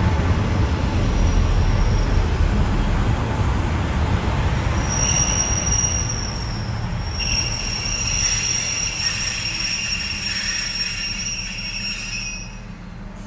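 Class 142 Pacer diesel multiple unit pulling into the platform, its running gear rumbling steadily. From about five seconds in, a high-pitched squeal starts as it brakes, breaks off briefly, then cuts out as the train halts near the end.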